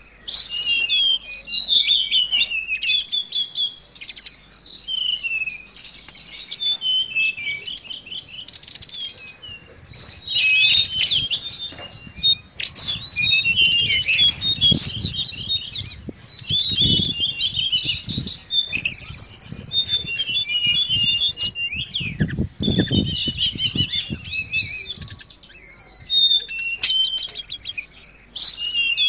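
Mangrove blue flycatcher (tledekan laut) singing a continuous run of rapid high chirps and trills, a lure song used to draw the same species. Low rumbles come in twice, about halfway through and again about three-quarters through.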